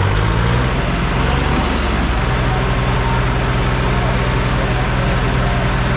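Diesel engines of a Preet 3549 and a Sonalika DI 35 tractor running hard under load as the two pull against each other in a tug-of-war, a steady low throb of rapid firing pulses.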